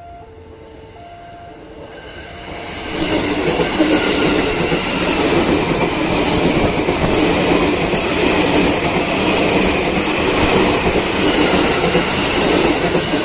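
KRL Commuter Line electric multiple unit passing close at a level crossing: the sound swells about three seconds in as the train arrives, then holds as a steady loud rumble and clickety-clack of wheels over the rail joints and crossing.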